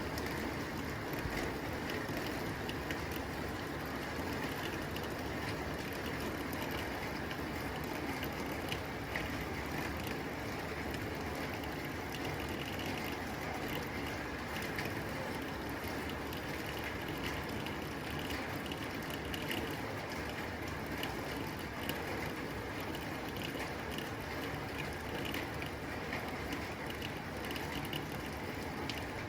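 Rain falling steadily on a tin roof: a dense, even patter of drops on metal with no let-up.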